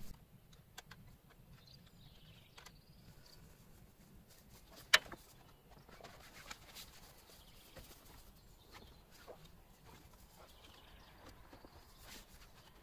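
Faint rustling and scattered clicks of an Alu-Cab 270° Shadow awning being folded in by hand, with one sharper click about five seconds in.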